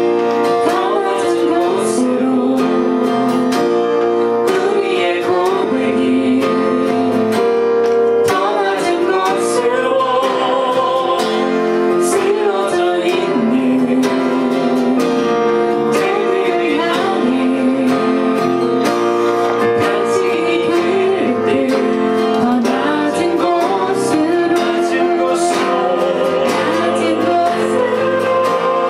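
A man and a woman singing a Korean worship song together, accompanied by a strummed acoustic guitar.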